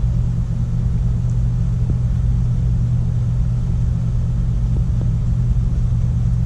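Steady low rumble with a constant low hum, even throughout.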